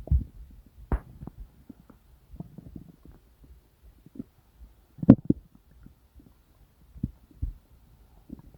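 Human stomach and intestines gurgling: irregular low gurgles and pops of digestive noise, the loudest about five seconds in.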